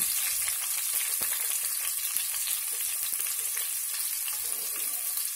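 Sliced onions sizzling in hot coconut oil in an aluminium pressure cooker: a steady hiss with small crackles as the onions start to fry.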